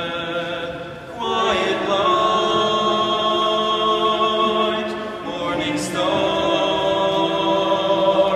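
Liturgical singing by voices in a large, echoing church: long held notes in slow phrases, with short breaks about a second in and again about five and a half seconds in.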